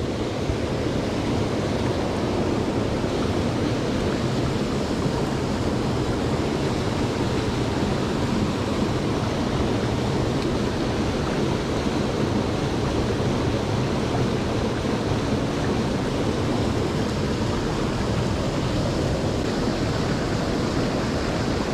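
Steady rushing of a fast-flowing mountain trout stream, an even roar of water.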